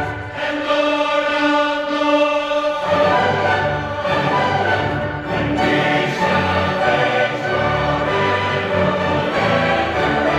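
Large mixed choir singing: a held chord gives way about three seconds in to fuller, moving harmony with strong low notes.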